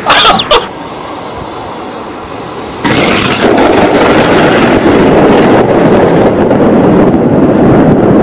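A few sharp thunder cracks from a close lightning strike right at the start, then about three seconds in a sudden loud, steady rushing noise.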